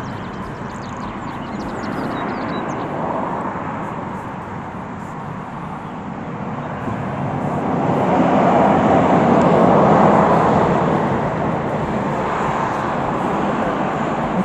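Vehicle noise: a steady rushing rumble that swells louder about two-thirds of the way through, then eases off.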